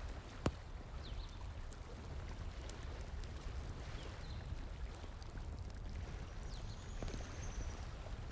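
Running stream water under a crackling bonfire, with scattered sharp pops of burning wood and one louder pop about half a second in. A few faint, short high chirps.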